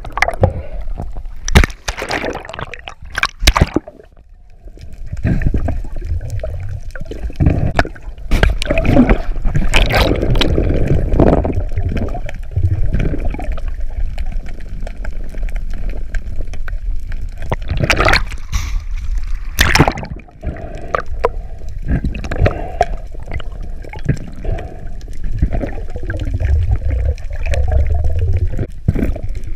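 Water sloshing and gurgling heard underwater through a submerged camera's housing, with a steady low rumble and scattered sharp knocks and clunks.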